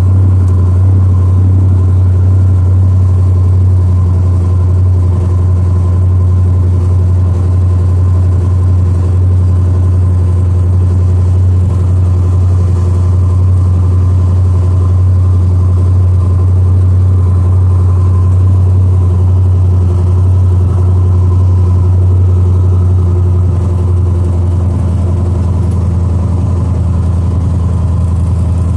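Car engine idling steadily, a deep, even drone that drops slightly in level near the end.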